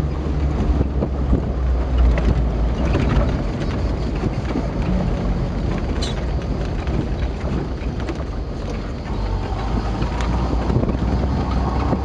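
Open-top 4x4 driving over a rough dirt track: a steady low rumble of engine and wind buffeting the microphone, with a few sharp knocks and rattles from the bumps.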